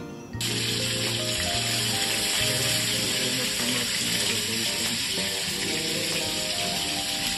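Steady hiss of a pot of water boiling hard on a gas stove, starting suddenly about half a second in, with background music playing under it.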